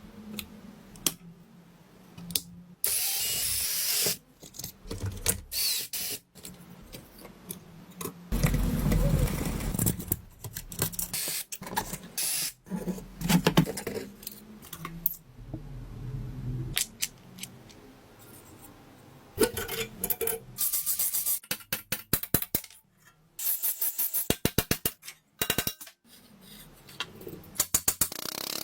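Workshop tool sounds on a vintage Skilsaw: a series of clicks, knocks and scraping with short bursts of a power tool, and a fast run of clicks near the end.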